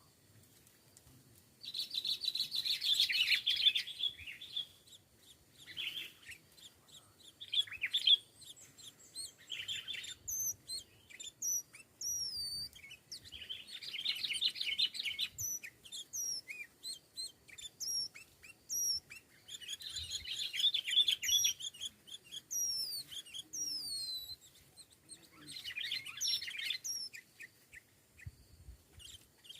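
Sooty-headed bulbuls calling: four loud bursts of bubbly chattering, the first about two seconds in and the others spread through the rest. From about ten seconds in, thin high down-slurred whistles come and go between them.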